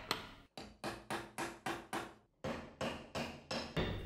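Freshly restored steel axe striking a wooden chopping block in a rapid series of sharp blows, about four a second, each with a short metallic ring, with a brief pause about two seconds in.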